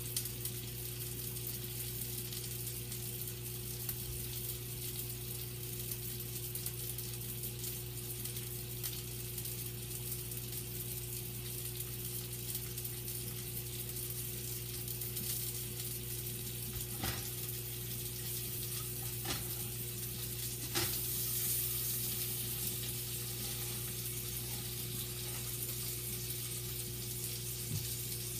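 Sausage frying in a pan, sizzling steadily, over a steady low hum. A few faint clicks come in the second half.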